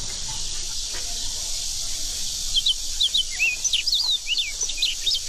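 Small birds chirping in a quick run of short, sweeping calls that begin about halfway through, over a steady high hiss of outdoor ambience.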